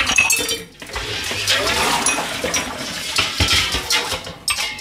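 Ceramic dishes and cutlery clinking as they are handled, with a sharp clatter right at the start. Water runs from a tap for most of the rest.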